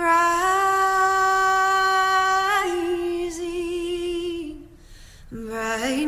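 A solo female voice singing slow, long held notes without words as a film score. A short break comes a little before five seconds, then a lower note that steps up.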